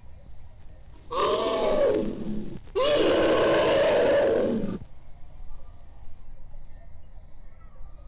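Elephant giving two loud calls in a row, about a second and a half and two seconds long, each rising and then falling in pitch.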